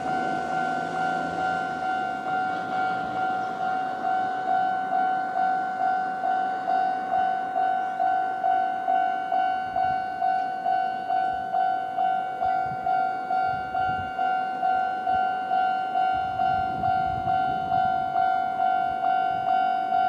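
Japanese railway level-crossing alarm ringing: the older standard-type electronic bell, striking in quick, even strokes at a fast tempo. It warns that a train is approaching.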